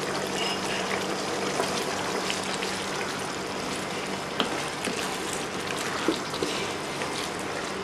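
Thick, creamy chicken curry simmering and spluttering in a wok-style pan: a steady bubbling hiss, with a few light clicks as a spoon stirs through it.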